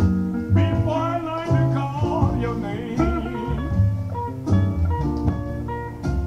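Slow blues song with guitar and a singing voice over a strong bass line.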